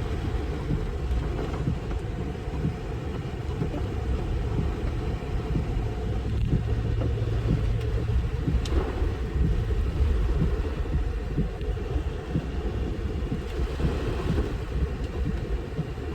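Steady low rumble of a vehicle driving, heard from inside the cab.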